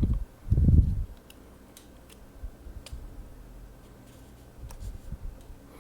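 Two dull low thumps in the first second, then faint scattered clicks and ticks: a plastic spudger prying the iPhone 4's screen assembly away from the frame, where adhesive holds it.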